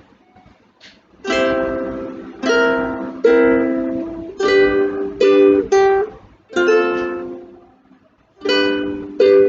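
Ukulele strumming the opening chords of a children's phonics song, each chord ringing and fading before the next, about one strum a second.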